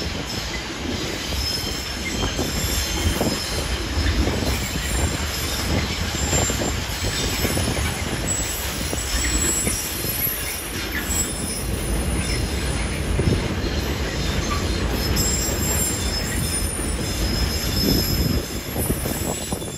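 Container freight train's loaded flat wagons rolling past: a steady rumble of wheels on rail with irregular clatter over the joints and a thin, high wheel squeal above it.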